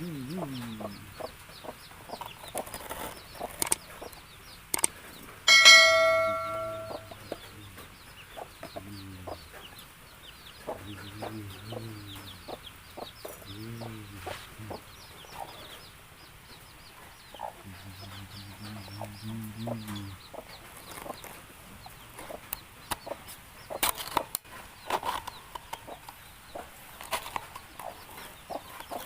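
Chickens clucking, with many short clucks and chirps throughout. About six seconds in, a single loud ringing tone sounds and fades over a second or so. Several low, wavering pitched sounds come and go through the middle.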